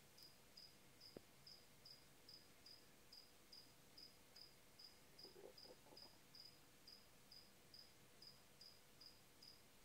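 Faint, steady chirping of a cricket, about two to three short high chirps a second. A single sharp click comes about a second in, and a brief faint rustle about five seconds in.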